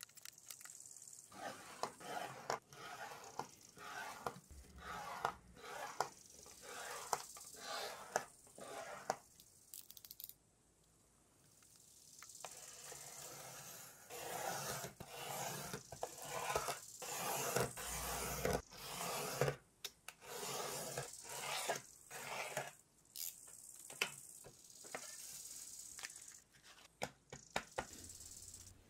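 A sheet of very fine P7000 sandpaper being handled and cut with a blade along a steel ruler: irregular scraping, rustling and tearing strokes, with a short pause about ten seconds in.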